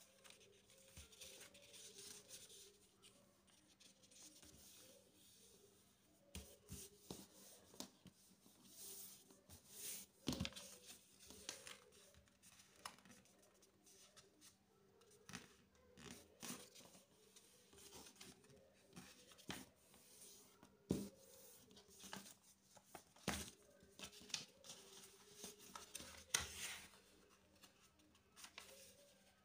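A sheet of printer paper being folded by hand on a tabletop: faint rustling and sliding of paper, with crisp creasing clicks as fingers press and run along the folds, coming irregularly with sharper snaps now and then.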